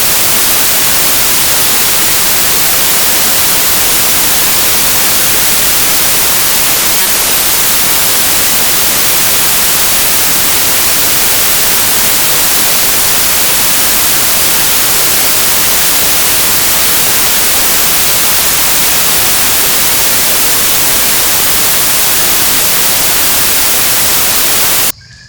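Loud, steady static hiss like white noise, strongest in the high range, that cuts off abruptly near the end.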